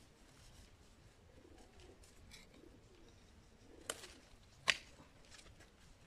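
A dove cooing faintly, with two sharp clicks of long-handled garden loppers a little under a second apart, the second the louder.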